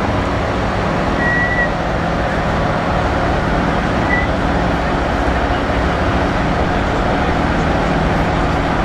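Two performance cars, a BMW M3 and a tuned Mercedes-AMG GT63 S, idling side by side at a drag-race start line with a steady rumble. Two brief high chirps sound about a second in and again about four seconds in.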